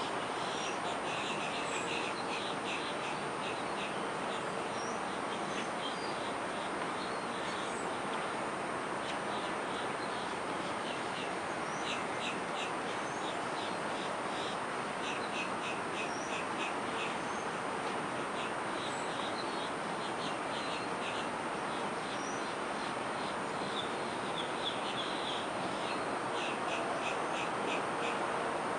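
Outdoor morning ambience: a steady, even background rush, with birds calling over it in repeated quick runs of short, high notes.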